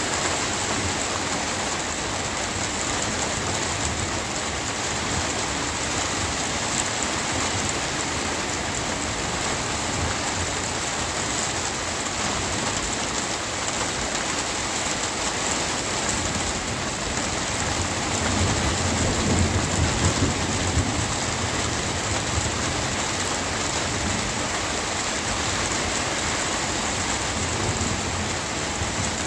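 Steady rain falling, with a low rumble of thunder that swells for a few seconds about two-thirds of the way through and then fades back under the rain.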